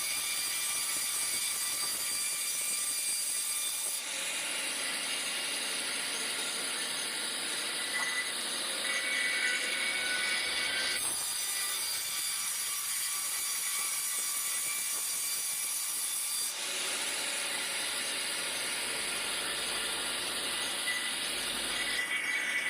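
Sawmill saw cutting through a log: a steady, high-pitched whine over a hiss, which changes abruptly in tone three times.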